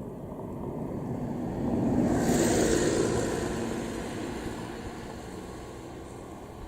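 A vehicle passing close by: its noise builds to a peak about two seconds in, then fades away over the next few seconds.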